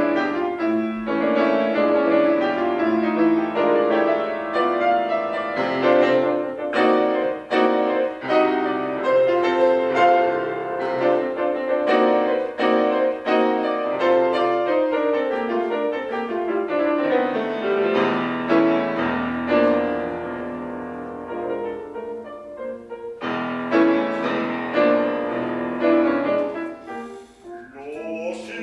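Grand piano playing alone, a classical-style passage of struck notes and chords. About two-thirds through, a long run of notes falls downward, the playing then quietens, and it pauses briefly near the end.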